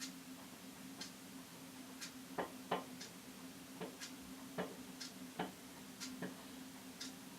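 A clock ticking steadily once a second over a low steady hum, with several louder, irregular clicks in between.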